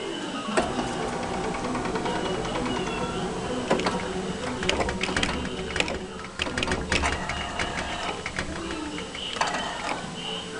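Claw machine's gantry motors whirring steadily as the claw is moved, with a run of sharp clicks and clunks in the middle as the claw drops and closes on a plush.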